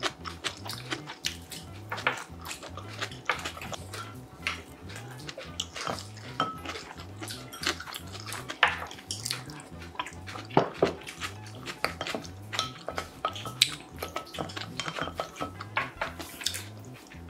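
A spoon clinking and scraping against a brass bowl as bibimbap is mixed and scooped up, with wet eating sounds. Soft background music with a steady low beat runs underneath.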